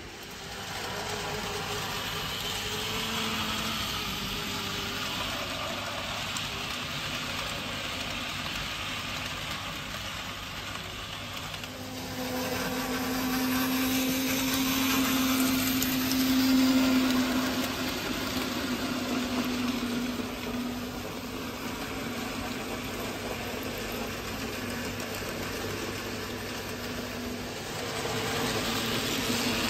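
N gauge model train running on the track, its small electric motor whirring and wheels rattling over the rails. It grows louder about halfway through as the model steam locomotive passes close by, then eases off.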